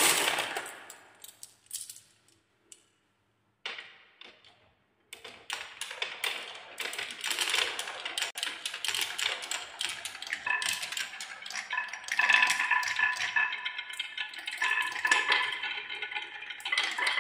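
Many marbles rolling and clacking down wooden marble-run tracks. A loud clack opens it and a few scattered clicks follow. From about five seconds in there is a dense, continuous rattle of balls knocking against the wood and each other, with a steady ringing tone joining in about halfway.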